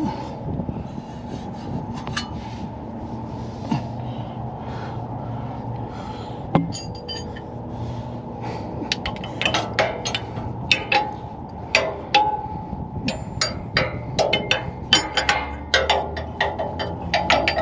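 Irregular metallic clinks, taps and scrapes of hands and tools working against a truck's frame and exhaust pipe while reaching up to an oxygen sensor and its plug. The knocks come thicker and sharper from about halfway through, over a steady low hum.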